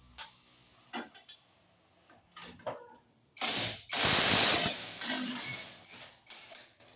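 Ratchet wrench being worked in short clicking strokes, then a louder stretch of fast, continuous ratcheting from about three and a half to five and a half seconds in, with a few metallic clicks of tools.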